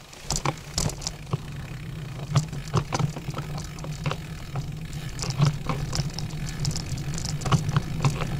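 A loaded touring bicycle rattling and clicking as it is handled and moved off, over a steady low hum.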